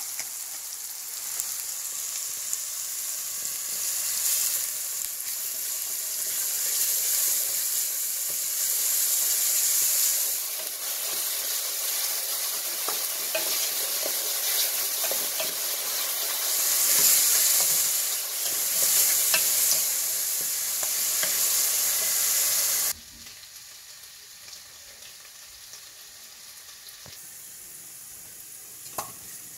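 Food sizzling in hot oil in a pan while being stirred, a steady frying hiss with small scraping clicks. It drops suddenly to a much quieter sizzle about three quarters of the way through.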